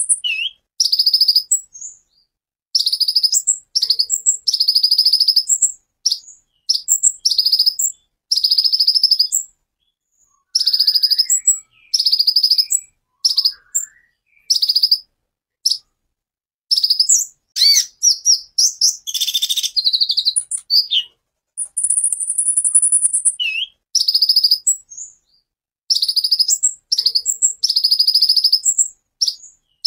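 Male kolibri ninja sunbird singing: loud, high-pitched bursts of rapid repeated sharp notes in short phrases with brief pauses between them. About 22 seconds in it gives a long, high, thin trill, and a denser, harsher run of notes comes just before it.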